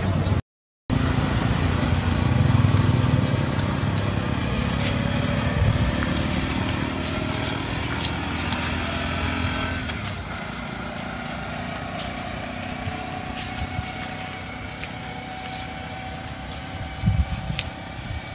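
Steady low rumbling noise, heavier in the first half and easing off about ten seconds in, with a brief total cut-out near the start and a few soft thumps near the end.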